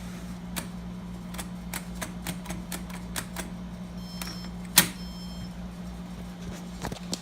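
Light irregular clicking from a Schlage KN150 electronic keypad lock being handled, then one loud sharp click a little past the middle, with faint high electronic tones just before and after it. A steady low hum runs underneath.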